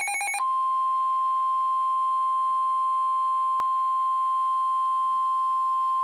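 NOAA Weather Radio warning alarm tone (1050 Hz): one steady, unwavering tone lasting about five and a half seconds. It signals that a warning message follows. It takes over from a rapidly pulsing beep pattern that stops within the first half second, and a brief click sounds about halfway through.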